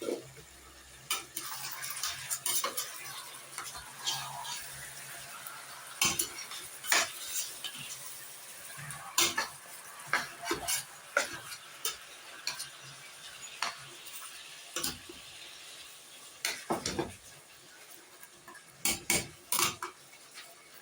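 A utensil clinking and scraping against a cooking pot in irregular strokes while stirring, over a steady sizzle of food cooking in the pot.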